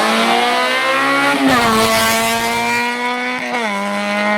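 Historic rally car's engine at high revs under hard acceleration, its pitch climbing and then dropping sharply at two upshifts, about a second and a half in and again past three and a half seconds.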